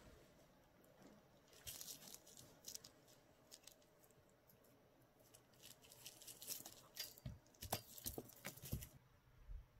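A calico kitten's paws patting and shifting on a sheet of bubble wrap, the plastic giving faint, scattered crinkling clicks. The clicks grow denser in the second half, with a few soft thumps near the end.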